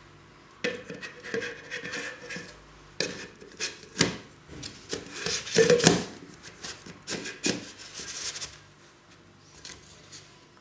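A Kaiser Shake & Bake metal baking tin being twisted onto its lid by hand, in a series of short, irregular scraping rubs as the lid is screwed down.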